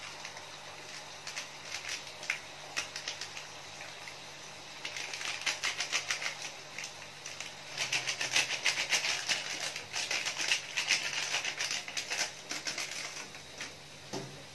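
A plastic seasoning sachet crinkling in rapid crackles as it is squeezed out by hand over a wok of simmering sauce. The crackling starts about five seconds in, is densest in the second half, and stops shortly before the end.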